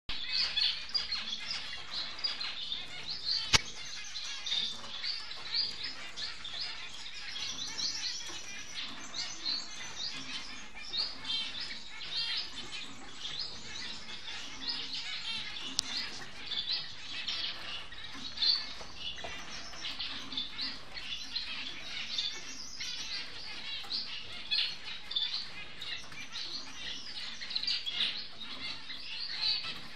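Society finches chirping and twittering continuously in quick, high notes, with one sharp click about three and a half seconds in.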